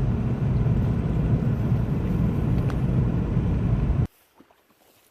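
Car being driven: a steady low engine and road rumble that cuts off suddenly about four seconds in.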